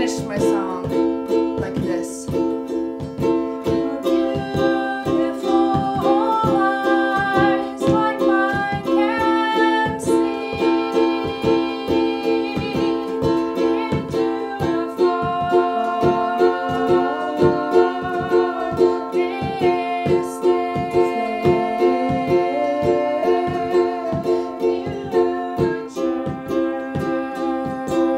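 Ukulele strummed in a steady rhythm, with a singer carrying a slow melody over it.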